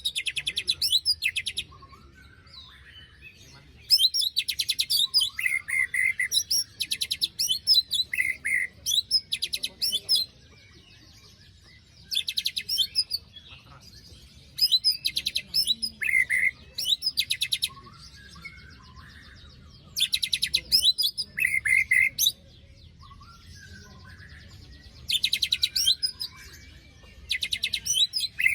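White-rumped shama singing in repeated bursts of fast, harsh, rasping rattles (besetan) mixed with short whistled notes, a burst every two to four seconds, with fainter chirps in the gaps.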